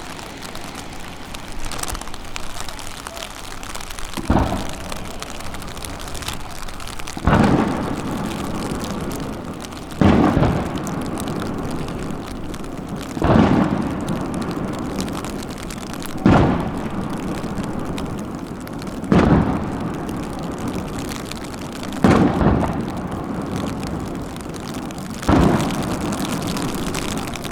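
Aerial firework shells bursting: eight booms about three seconds apart, each followed by a rolling rumble that dies away.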